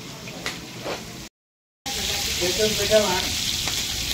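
Sliced onions and leafy greens sizzling as they fry in oil in a large aluminium pot, with a slotted spoon stirring them. The sound cuts out completely for about half a second near the middle, then the sizzling comes back louder.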